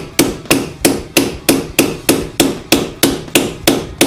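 A hammer striking in a steady rhythm, about three blows a second, each blow with a short ringing decay.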